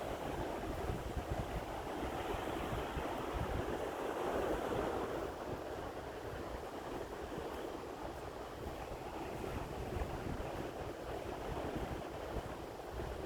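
Sea waves washing onto the shore, one wave swelling louder about four seconds in, with wind gusting on the microphone.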